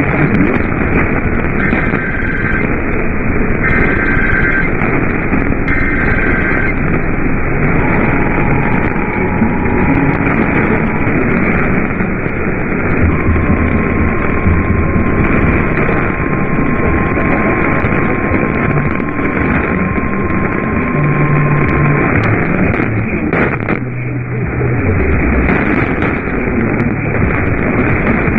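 Heavy static hiss from a weakly received radio broadcast. Three short bursts of EAS header data tones sound faintly through the noise in the first few seconds, and a faint steady alert tone runs under the static through the middle.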